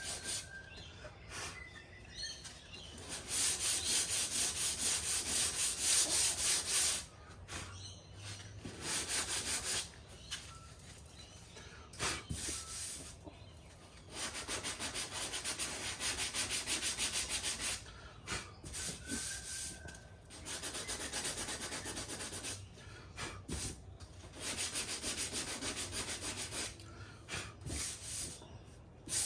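Sanding block rubbed back and forth over a repaired car body panel, in bouts of a few seconds with short pauses between: hand block-sanding the repair smooth.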